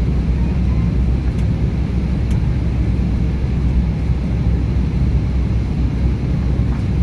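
Steady rumble of engine and airflow noise heard inside the passenger cabin of an Airbus A320neo descending on approach, heaviest in the low end.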